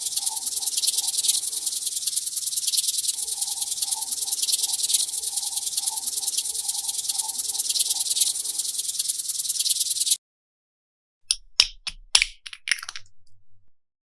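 Slime being squeezed and kneaded, a fast, dense crackling and popping that stops abruptly. About a second later comes a short flurry of sharp clicks and taps.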